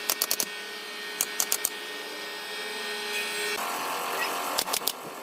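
Woodworking tool sounds: quick clusters of three or four sharp taps or knocks, three times, over a steady mechanical hum.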